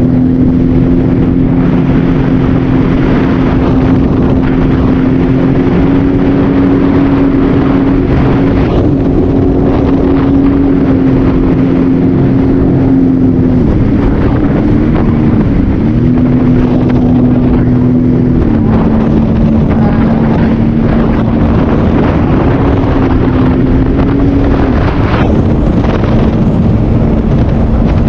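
Jet ski engine running loudly at a steady speed, over wind noise on the microphone. Its pitch holds level, dips and recovers twice about halfway through, then settles slightly lower.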